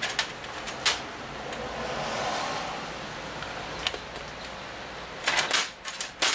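Steel bolts clinking against one another and against a cast-metal outboard engine part as they are handled and set into its holes: a few sharp clicks near the start, a single one partway through, and a quick cluster of clinks near the end, with soft rustling of gloved hands between.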